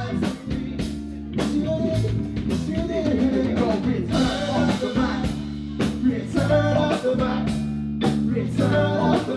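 Live rock band playing: drum kit keeping a steady beat under electric guitar and bass, with singing.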